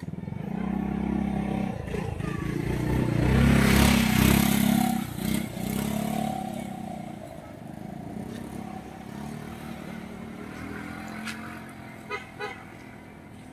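An engine vehicle, likely a motorcycle, passing by: it grows louder to a peak about four seconds in, then fades away over the next few seconds.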